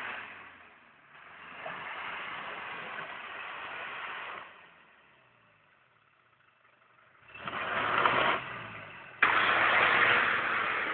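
Off-road 4x4's engine running in surges that rise and fall, with a lull in the middle and a sudden loud burst near the end.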